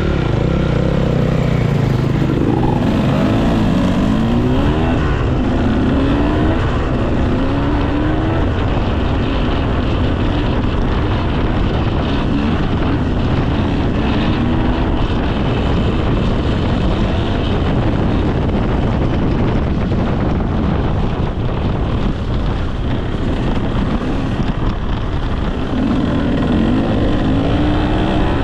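Dirt bike engine revving up and down over and over, its pitch rising and falling in repeated pulls.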